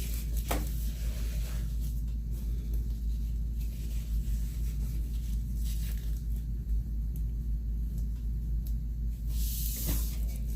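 Soft rustling of fabric and Velcro being handled and pinned, a few brief times, over a steady low hum.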